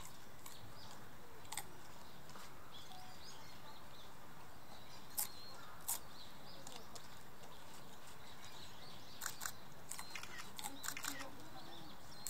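Faint background chatter of visitors with a few high bird chirps, over a steady hiss. Scattered sharp clicks come once or twice early on, then in a quick cluster near the end.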